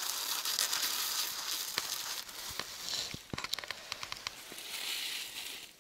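Crunching and crackling of snow and ice close to the microphone, with a run of sharp clicks in the middle.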